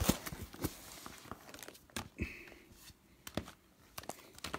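Handling noise: plastic wrapping crinkling and scattered light taps and clicks as things are moved about on a table, with a brief high squeak near the middle.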